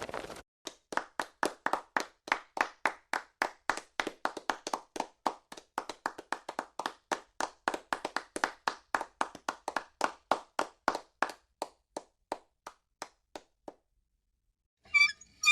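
Hands clapping in a steady run, about four sharp claps a second, thinning out and fading away after some thirteen seconds. Near the end come two bright, ringing clinks.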